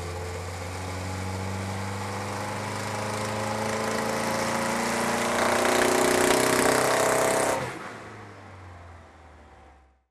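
Turbocharged Mitsubishi 4G63 four-cylinder engine of a Lancer Evolution VI making a pull on a chassis dyno. The pitch and loudness climb steadily as it gains revs under load for about seven and a half seconds, then the throttle is shut and the sound drops away and fades out.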